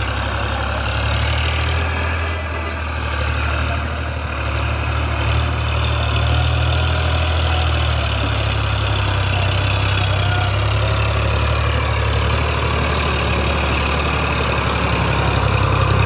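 Eicher 557 tractor's diesel engine running steadily while it hauls a trailer loaded with soil.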